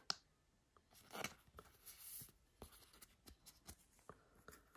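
Faint rustling and small clicks of a trading card and a thin plastic card sleeve being handled, the card slid into the sleeve.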